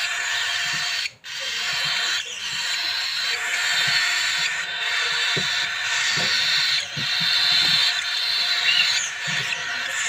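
Budgerigar chicks giving a continuous raspy, hissing begging chorus, which cuts out briefly about a second in. A few soft low thumps of handling on the blanket come in the second half.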